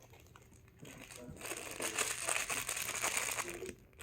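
Crinkling, rustling noise that builds about a second and a half in and stops just before the end.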